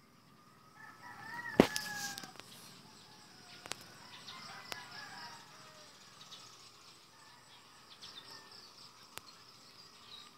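A rooster crows once about a second in, a single call of about a second and a half that rises and then falls away. A sharp click cuts across the crow, and a few fainter clicks follow later.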